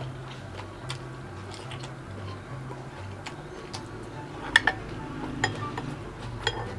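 Soft background music with a slow stepping bass line, over which eating utensils clink against a plate a few times in the second half, the loudest clink about four and a half seconds in.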